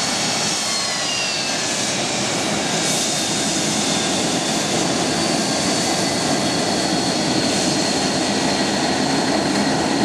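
Boeing 737-200's Pratt & Whitney JT8D turbofan engines running as the jet taxis past: a steady loud rush with high whining tones, some dipping slightly in pitch about a second in.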